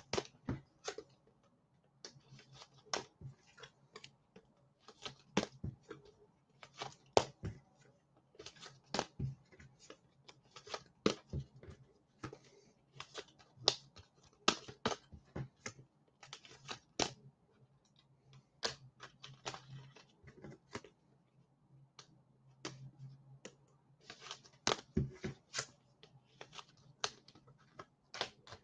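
Irregular light clicks and taps of small objects being handled on a desk, one to a few a second with short pauses, over a faint steady low hum.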